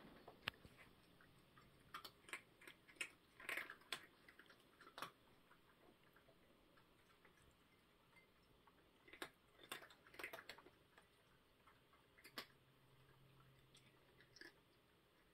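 Cats eating from food bowls: faint, scattered clicks of chewing in small clusters a few seconds apart, over near silence.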